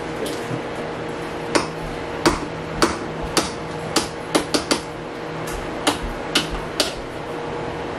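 A kitchen utensil knocking against a pot about a dozen times at irregular intervals, over a steady low background hum.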